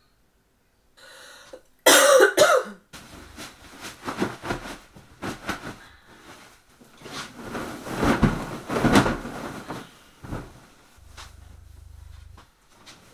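A person coughs in a short loud fit about two seconds in, then bedding rustles and swishes as a duvet is smoothed and a fluffy throw blanket is spread over the bed.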